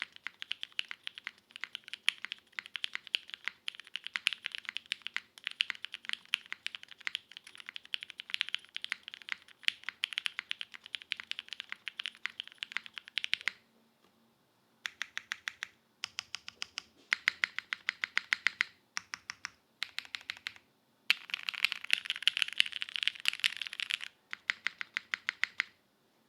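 Typing on a Keycult No. 2/65 custom mechanical keyboard with lubed linear switches (Cherry MX Hyperglide housings with Kailh Black stems) on a full aluminium plate, under GMK keycaps. Rapid, steady keystrokes for about the first half, then a pause and several shorter bursts of typing with gaps between them, stopping just before the end.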